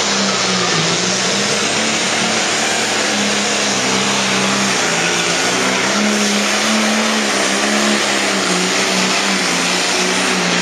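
Pro Stock pulling tractor's turbocharged diesel engine running flat out under heavy load as it drags the weight-transfer sled down the track. The engine note holds high and steady with slight dips.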